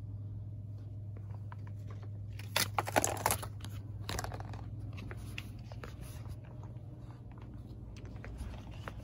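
A scrub brush dropped into a plastic shopping basket, rattling against the basket and crinkling the packaged items, in a short burst about two and a half seconds in with a smaller clatter a second later. A steady low hum runs underneath.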